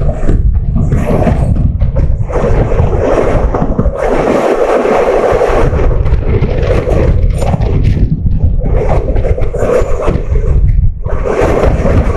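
Loud, continuous rumble and scrape of a moving passenger train on the track, with wind buffeting the microphone.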